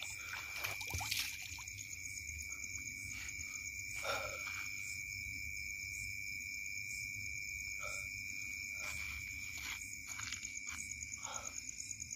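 Night insects chirping in a steady, high, unbroken chorus, with a few short scuffs and knocks on stony ground.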